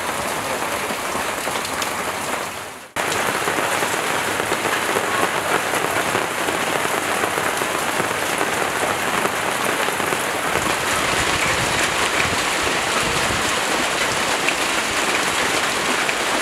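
Steady rain falling, an even hiss that fades out just before three seconds in and cuts straight back in, slightly louder.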